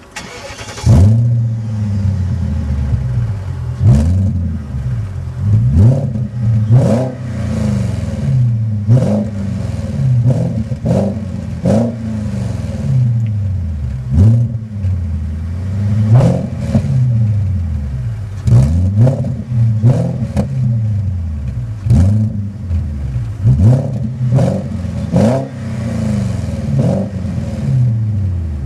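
BMW E38 740i V8 engine being revved in repeated throttle blips, the revs rising and falling every second or two. It comes in loud about a second in.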